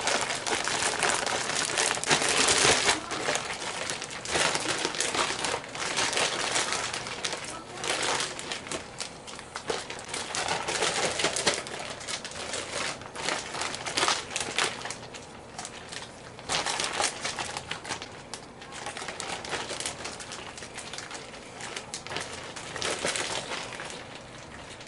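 Plastic zip-top bag crinkling and crackling as it is squeezed and kneaded by hand to mix the batter inside, loudest in the first few seconds and fading toward the end.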